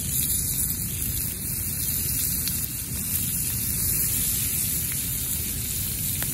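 Butter sizzling as it melts in a hot cast-iron skillet over a wood fire: a steady hiss with a low rumble underneath and a few faint crackles.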